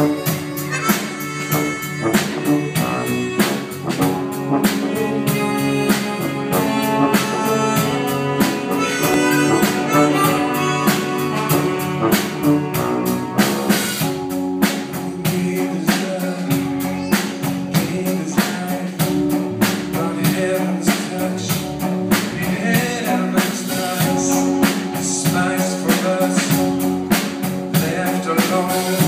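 Live church worship band playing, with a steady drum beat under sustained chords, as picked up by a phone's microphone.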